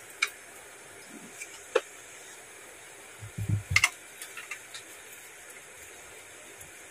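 Plastic attachment being pushed and fitted onto a handheld body massager's head: a few sharp plastic clicks and a dull knock about three and a half seconds in, over quiet room tone. The massager's motor is not running.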